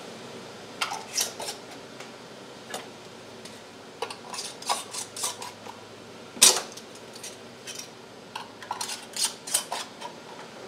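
Metal canning lids and screw bands being fitted and screwed finger-tight onto glass mason jars of salsa: a scattering of short clinks and scrapes of metal on glass, with one sharp clink about six and a half seconds in.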